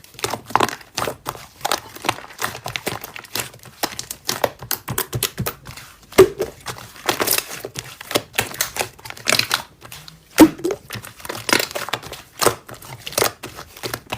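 Slime being pressed and squished by hand, making quick, irregular clicking and crackling pops, with louder squelches about six and ten seconds in.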